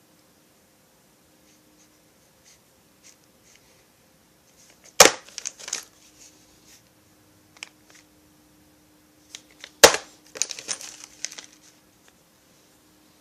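Small bagged hardware being handled: two sharp clicks about five seconds apart, each followed by a short rattle of metal parts and crinkling plastic, over a faint steady hum.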